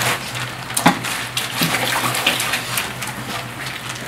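Water splashing and dripping as salted napa cabbage halves are rinsed by hand in a tub of water, with a couple of sharper splashes in the first two seconds.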